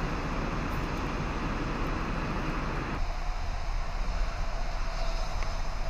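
Wet-night street ambience: an even hiss of rain and traffic over a low rumble, the hiss dropping away suddenly about three seconds in.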